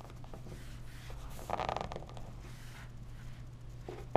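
Gloved hands handling a small vinyl figure on a desk: a brief rustling scrape about a second and a half in, and a couple of light clicks near the end, over a steady low hum.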